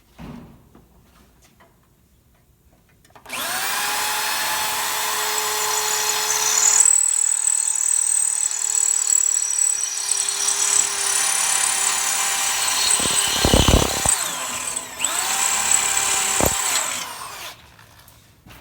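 Power drill drilling out the old rivets of an appliance dolly's cross member at their centre-punched marks. It starts about three seconds in and runs with a steady whine, pauses briefly near the end, then runs again and stops.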